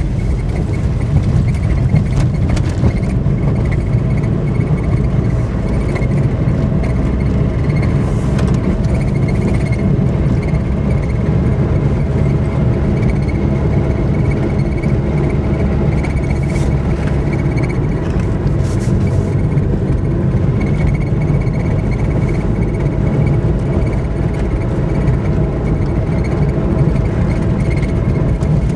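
Peugeot 106 under way, its engine and road rumble heard steadily from inside the cabin.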